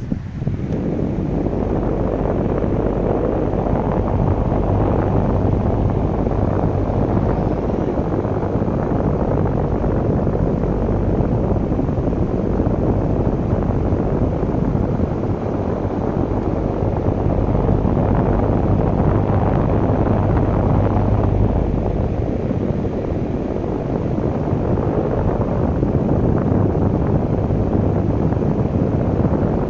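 Strong storm wind blowing hard and buffeting the microphone. The rush swells and eases a little through the stretch.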